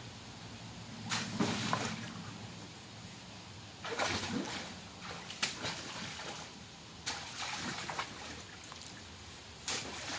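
Water splashing and sloshing in a shallow inflatable paddling pool as a child wades and jumps in it: several separate splashes a few seconds apart, with quieter sloshing between.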